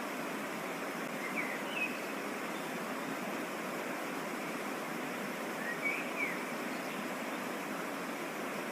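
Waterfall's steady rush of falling water, with short bird chirps about a second and a half in and again around six seconds.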